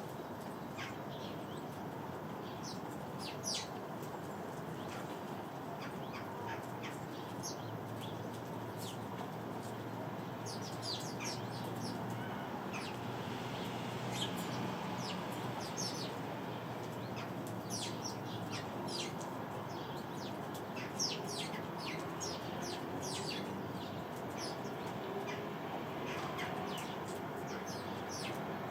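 Sparrows chirping repeatedly in short, high notes, busiest in the middle of the stretch, over a steady background hum.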